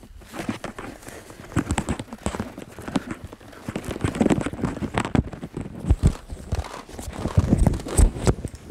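Heavy boots crunching on packed snow in a run of irregular footsteps.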